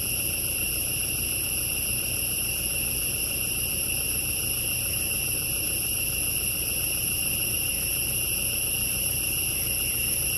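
Steady, high-pitched chorus of forest insects, several shrill tones held without a break, over a low rumble.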